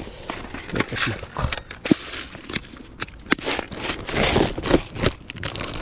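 Handling of fishing tackle and soft-plastic worm packs: irregular rustling and light clicking as plastic packets and lures are rummaged through.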